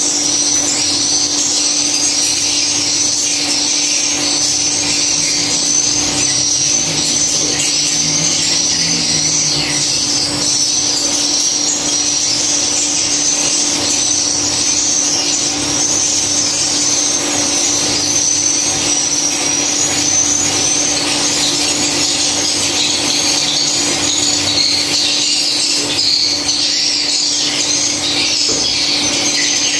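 Dense, continuous high-pitched twittering of many swiftlet calls, with a steady low hum underneath.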